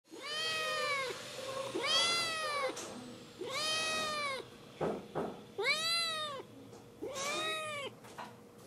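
Black-and-white kitten, injured with broken legs, meowing five times, each meow under a second and rising then falling in pitch. A few short clicks come about halfway through.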